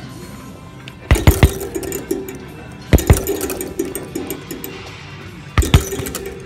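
Punches smacking a double end bag in three quick flurries of sharp hits: about a second in, about three seconds in, and near the end.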